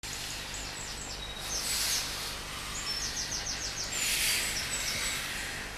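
Steam locomotive No. 12 Hutchinson, a 2-4-0 tank engine, moving slowly, with two bursts of steam hissing about two seconds apart as steam blows out at its cylinders. Small birds chirp over it, including a quick run of about six notes.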